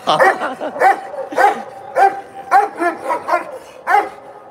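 A chained Bully Kutta barking repeatedly and aggressively, about two barks a second, at a stranger in front of it.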